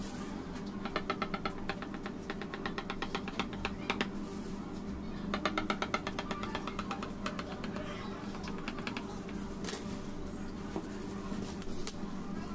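A kitchen knife held upright, chopped rapidly up and down through a red velvet sponge so that its tip taps the granite countertop, in several quick runs of about ten ticks a second, cutting out a heart shape; a steady low hum underneath.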